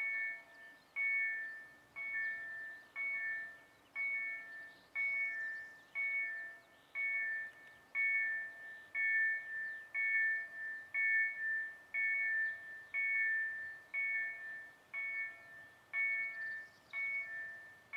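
Level crossing warning bell ringing steadily about once a second. Each strike dies away before the next, signalling that the barriers are down and a train is approaching.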